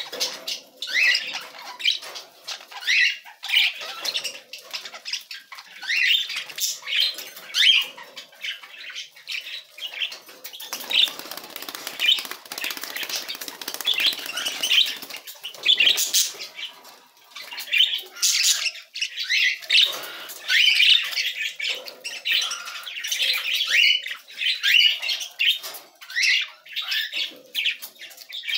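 Young budgerigars chirping and chattering continuously in their cage, a rapid run of short high chirps with now and then a flutter of wings.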